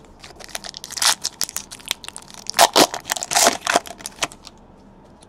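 Foil wrapper of a Panini Chronicles baseball card pack crinkling and tearing as it is pulled open by hand: a run of sharp crackles that is loudest a little past halfway and stops about four and a half seconds in.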